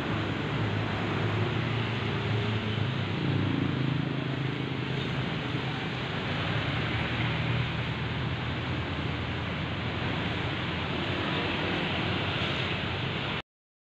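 City street traffic: passing jeepneys and a motorcycle with their engines running, over a steady din of traffic. It cuts off suddenly near the end.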